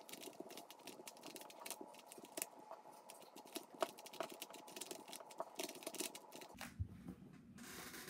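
A 3x3 Rubik's cube being turned quickly by hand: a fast, uneven run of plastic clicks and clacks as the layers snap around. About six and a half seconds in the clicking stops and a duller handling rustle takes over.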